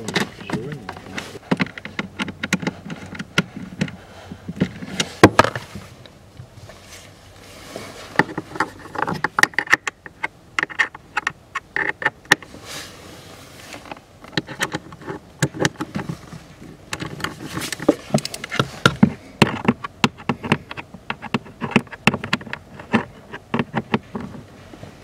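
A hand ratchet with a socket clicking in repeated quick runs as it tightens down a plastic fuse box, with knocks and rattles from the box being pushed into its mount.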